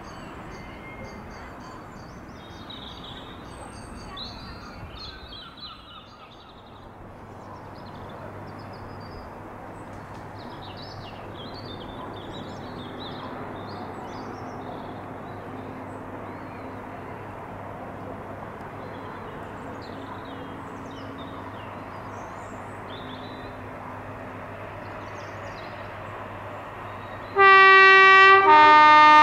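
Birds chirp over a low, steady rail hum that slowly builds as an electric multiple-unit train nears. Near the end the train sounds its two-tone horn very loudly: a higher note, then a lower one about a second later.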